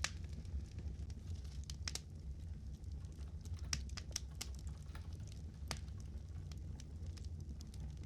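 Fire crackling: scattered sharp pops, several close together around the middle, over a steady low rumble.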